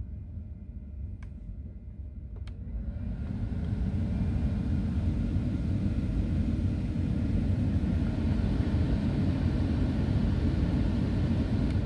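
Two light clicks of climate-control buttons, then the BMW F30's heater and A/C blower fan ramps up to full speed over about a second and a half and runs steadily with air rushing from the vents. A further button click comes near the end.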